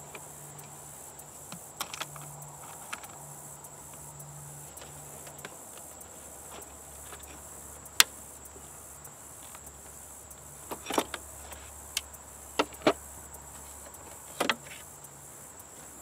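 Sharp clicks of locking hose-clamp pliers and a spring hose clamp as a small rubber hose on a car's top-mount intercooler is worked loose by hand. A few scattered clicks, a loud sharp one about halfway through, then a quick cluster of clicks in the last few seconds.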